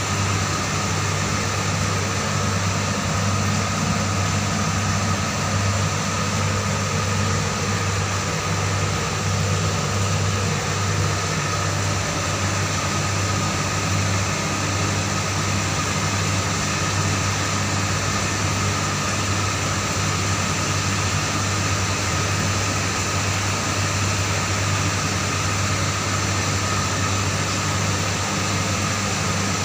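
A steady machine hum: a low drone with a fainter high whine above it, unchanging throughout.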